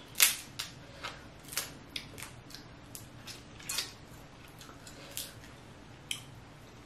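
Cooked snow crab leg shell cracked and snapped apart by hand: a series of sharp, separate cracks, the loudest about a quarter second in, with smaller clicks as the shell pieces are pulled from the meat.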